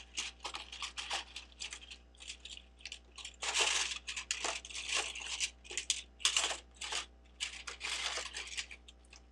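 Hands sorting through loose plastic Lego pieces: a quick, irregular run of clicks and rattles, with longer rustling stretches a few seconds in and again near the end.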